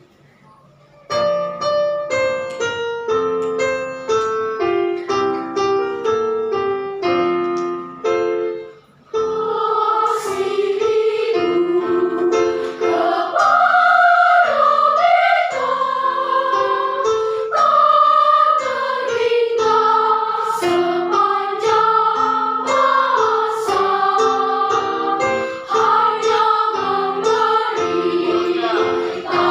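A piano plays a short introduction, then about nine seconds in a children's choir comes in singing, with the piano accompanying.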